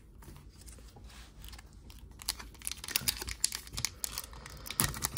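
Foil wrapper of a sealed basketball trading-card pack crinkling in the hands and being torn open, a fast run of small crackles that grows busier from about two seconds in.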